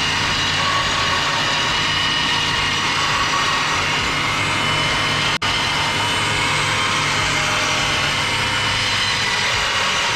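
A motor running steadily, with a faint high whine over a low hum and a momentary break about five seconds in.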